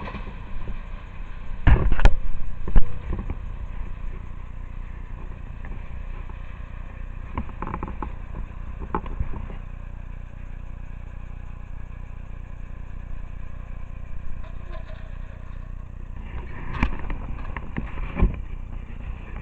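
Steady low rumble of a freight train moving away, with a few sharp knocks about two seconds in and again near the end.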